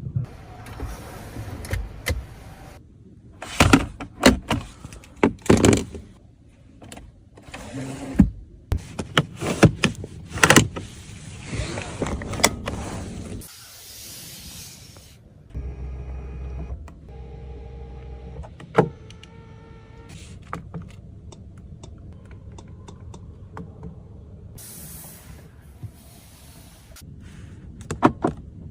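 A series of clicks and knocks from the Mercedes-Benz S-Class S450L's doors and controls, then an electric motor in the car whining steadily for about five seconds past the middle, followed by lighter clicks.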